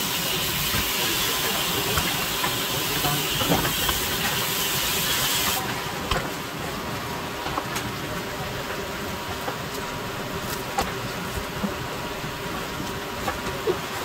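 A steady hiss that cuts off suddenly about five and a half seconds in, leaving a quieter background with a few light clicks of a knife against a wooden cutting board as sea bass fillets are skinned.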